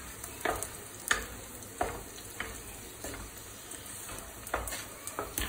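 Wooden spatula stirring and scraping sliced onions, green chillies and curry leaves sautéing in an earthenware clay pot, with irregular light knocks of the spatula against the pot over a faint sizzle.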